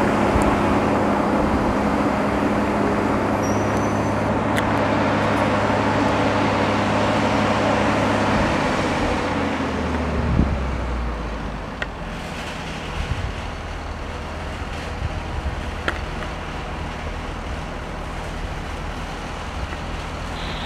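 Diesel engine running with a steady hum, then winding down in pitch and level about ten seconds in, leaving a quieter steady engine rumble with a few faint clicks.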